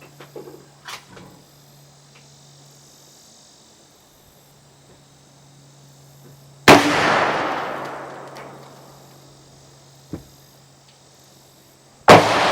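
Two shots from a Marlin 1894c lever-action rifle in .357 Magnum, about five and a half seconds apart. Each is a sharp crack followed by a long echo that dies away over about two seconds.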